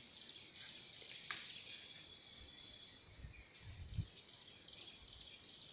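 Steady high-pitched insect chorus, with a light click a little over a second in and a soft thump about four seconds in.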